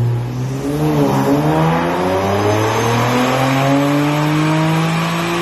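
Infiniti Q60's engine accelerating hard, its pitch dipping briefly about a second in and then climbing steadily.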